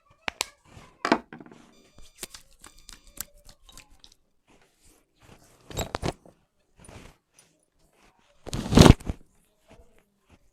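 Hair cracking massage: a run of sharp crackling snaps as strands of hair are pulled and twisted, then a louder double crack about six seconds in and a longer, louder crackling burst near the end.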